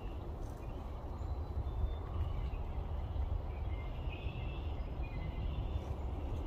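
Outdoor ambience: a steady low rumble with faint, short, high chirps of small birds about two to five seconds in.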